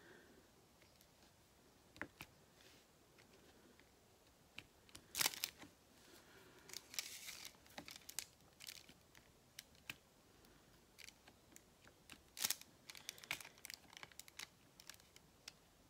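Faint scattered clicks and taps of diamond painting: a drill pen dabbing round drills out of a plastic tray and pressing them onto the adhesive canvas, with short crinkles of the plastic cover film. The loudest are two sharp rustling taps, about five seconds in and near twelve and a half seconds in.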